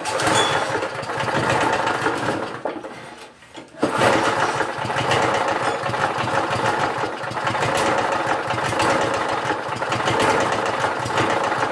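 Poulan Pro push mower's small engine, running on fuel vapor with its air intake partly blocked by cardboard, runs steadily. It falters briefly about three and a half seconds in, then picks up and keeps running.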